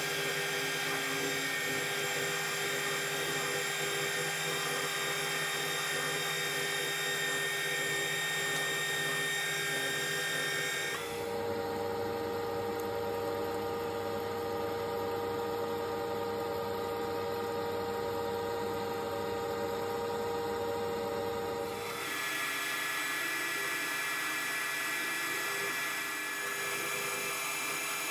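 Metal lathe running under power while a WNMG carbide insert turns down a 4140 steel bar, a steady machine whine of several tones mixed with the noise of the cut. The whine changes pitch sharply about 11 seconds in and changes back about 22 seconds in.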